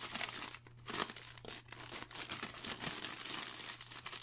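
Clear plastic zip-top bag and small plastic packets of diamond-painting drills crinkling and rustling irregularly as they are handled and pulled apart.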